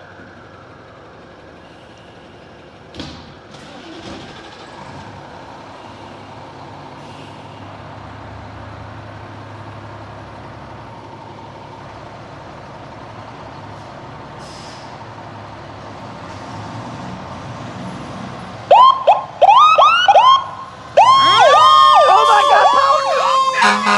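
Fire engine diesels running low and steady. About 19 s in, Engine 2's electronic siren starts loud on the PowerCall tone: rapid rising-and-falling sweeps, with a steady horn-like tone joining a couple of seconds later.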